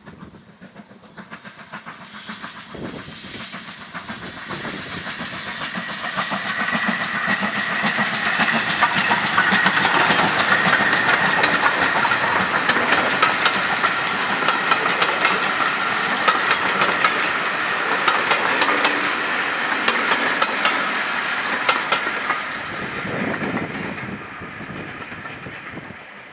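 Steam-hauled passenger train passing, its wheels clicking rapidly over the rail joints. It grows steadily louder over the first several seconds, holds, then fades away near the end.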